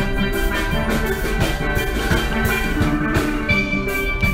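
Background music with a melody and a steady drum beat.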